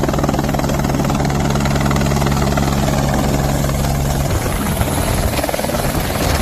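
Light helicopter flying in low and close, its main rotor chopping steadily with the engine running. A steady low hum under the chop drops away about four seconds in as it comes down near the pad.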